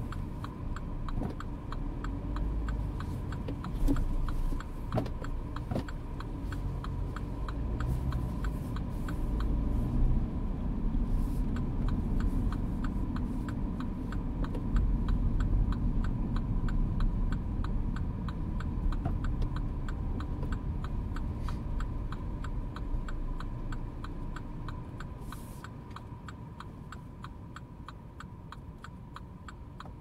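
Mini Clubman heard from inside the cabin while driving: a steady low engine and road rumble that swells in the middle and dies down over the last few seconds. A regular, evenly spaced ticking and a faint steady high tone run beneath it.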